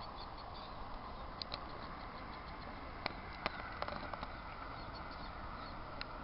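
Steady outdoor background noise with a few short, sharp clicks scattered through it, the two loudest about half a second apart near the middle.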